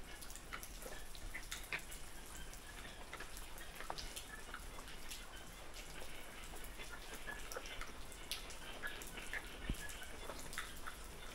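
Quiet outdoor ambience: faint, scattered short ticks and brief chirps over a low steady hiss, like light dripping.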